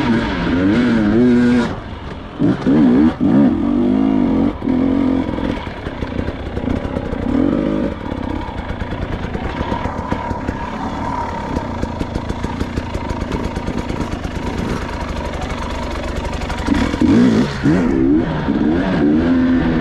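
Dirt bike engine ridden over sand and slickrock, revved in bursts with the pitch rising and falling as the throttle is opened and closed. In the middle it runs at low revs with a rapid, even pulse, then revs hard again near the end.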